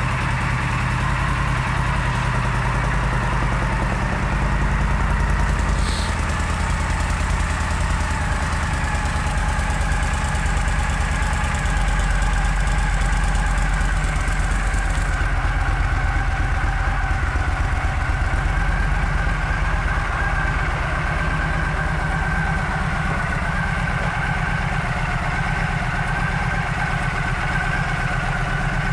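Yamaha V Star 1300's liquid-cooled V-twin engine idling steadily, with a brief click about six seconds in.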